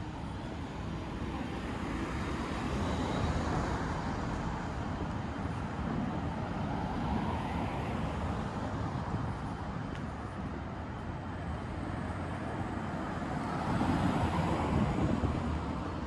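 City street traffic: cars passing one after another over a steady urban hum, one swelling past a few seconds in and another, louder, near the end.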